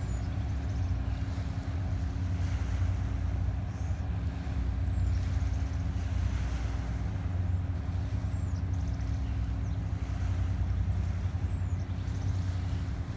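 Tugboat's engine droning steadily across the water, a low rumble with a constant hum. Faint high chirps come through a few times.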